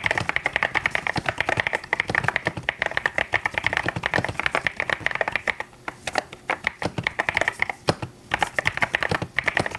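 Fast typing on a mechanical keyboard: a dense run of keystrokes that thins out a little past the halfway point, stops briefly about eight seconds in, then picks up again.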